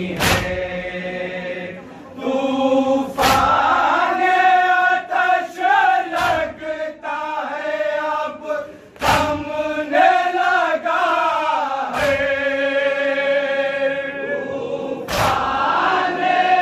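Noha, a Muharram lament, chanted by a male lead voice with many men's voices joining in. Six sharp, unison strikes about every three seconds land on the beat: the crowd beating their chests in matam.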